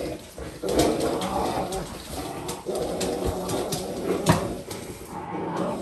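Rottweilers growling in play while tugging a rope toy, in long rough stretches with short breaks. Clicks and a sharp knock about four seconds in.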